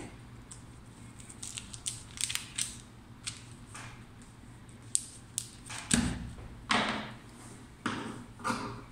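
Paper pattern and fabric rustling and scraping as they are smoothed flat on a table, with a thump about six seconds in. Near the end, scissors begin snipping through the fabric.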